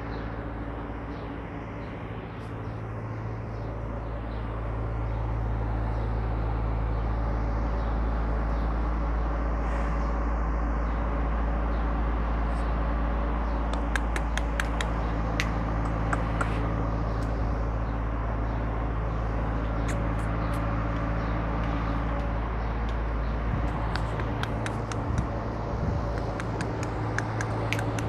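Steady low mechanical hum under a wash of background noise, with scattered short clicks and knocks in the second half.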